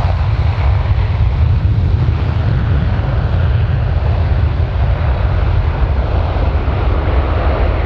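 Boeing E-3A Sentry's four TF33 turbofan engines running loud as the aircraft rolls along the runway, a steady deep rumble with a rushing hiss above it.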